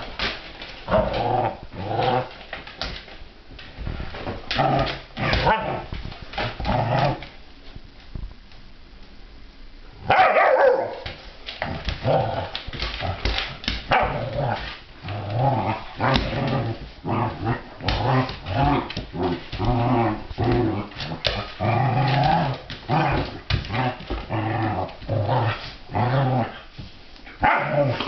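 Two dogs, a Bernese mountain dog puppy and a larger white dog, play-fighting, with repeated growls and occasional barks. There is a brief quieter lull about a third of the way in, then a loud burst of growling.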